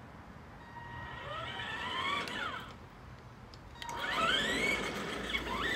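Electric motor of an RC monster truck whining as the car speeds up and slows, its pitch rising and then falling twice: once about a second in, and again, louder, from about four seconds in as it passes close.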